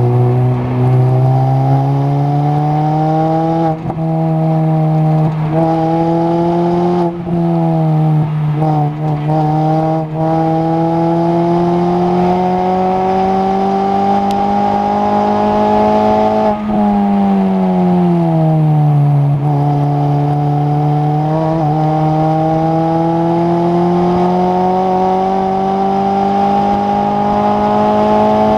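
Mini race car's engine heard from inside the cabin under hard acceleration on track. Its pitch climbs through the gears, with short breaks at upshifts around 4 and 7 seconds in. The note falls steeply a little past the middle as the car brakes and downshifts for a corner, then rises steadily again as it pulls back up to speed.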